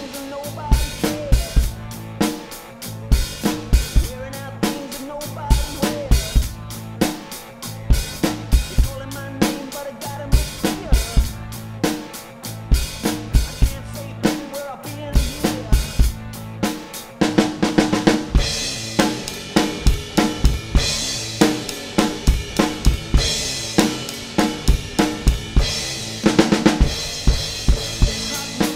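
Rock drum kit played to a beat: kick drum and snare strokes with hi-hat, over a rock backing track with pitched instruments. Past the middle the playing opens up with much more cymbal crashing and ride.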